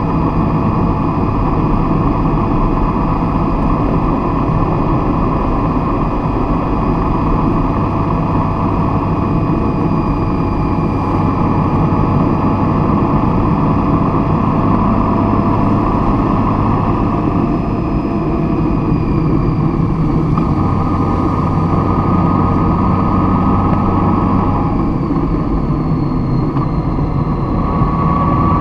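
A vehicle running steadily: a continuous low rumble and noise, with faint engine tones that drift slowly down in pitch about two-thirds of the way through and rise again near the end.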